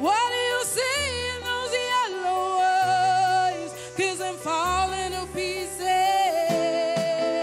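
A woman singing long, sliding notes with vibrato over pop-song backing music with changing bass notes.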